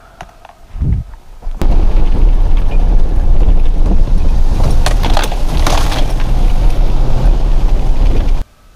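Pickup truck driving a rough, wet dirt track, heard from inside the cab as a very loud rumbling and rattling with scattered sharp clatters. It starts with a thump about a second in and cuts off suddenly near the end.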